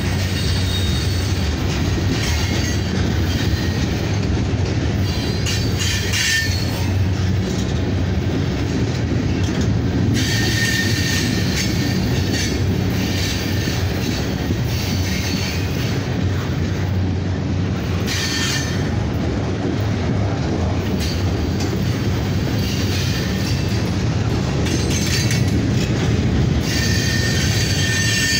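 Freight train of steel-coil cars and flatcars loaded with steel beams rolling past close by: a steady rumble of steel wheels on rail. Short high-pitched wheel squeals break out several times.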